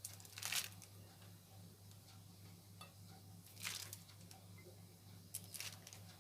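Three short rustling, scraping handling sounds, roughly two to three seconds apart, over a steady low hum.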